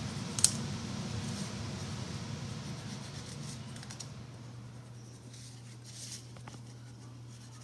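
Wax crayon rubbing on construction paper, a few faint strokes, over a low steady hum. A sharp click about half a second in is the loudest sound.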